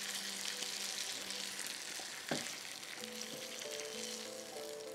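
Hot spiced fried fish sizzling in its oil as it is stirred and scraped with a wooden spatula out of a frying pan into a glass bowl, with one knock of the spatula a little past two seconds in. Soft background music with held notes underneath.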